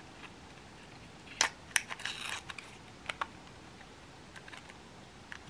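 Plastic-and-foil blister pack handled: a few sharp clicks and a short crinkle as a tablet is pressed out through the foil backing.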